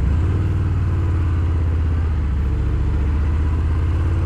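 Harley-Davidson Fat Bob 114's Milwaukee-Eight V-twin running steadily under way, its exhaust coming through Rinehart 4.5-inch slip-on mufflers as a low, even pulsing note.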